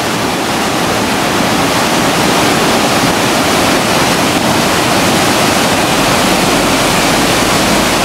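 Large waterfall pouring in several strands down a cliff into a plunge pool: a loud, steady rush of falling water.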